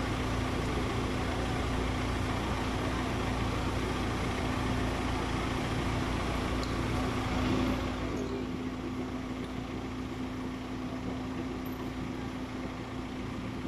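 Foton passenger van's engine idling steadily with a constant hum, the noise easing slightly a little past the middle.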